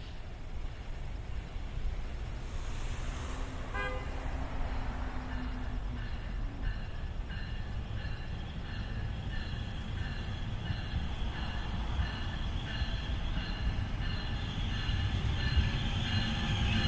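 Commuter train approaching on the line, a low rumble building in loudness toward the end. Over it, a bell rings steadily, about one and a half strikes a second.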